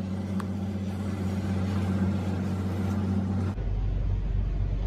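Steady low engine hum of boats at sea, over a rushing of wind and water. About three and a half seconds in the sound turns suddenly duller and a deeper hum sets in.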